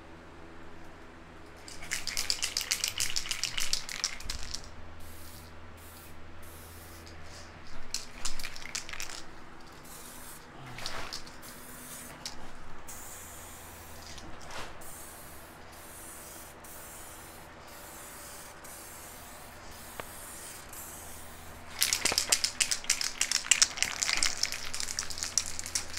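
SprayMax 2K aerosol paint can spraying in bursts of hiss as the fairings are coated: a long pass about two seconds in, shorter bursts in the middle, and another long pass near the end.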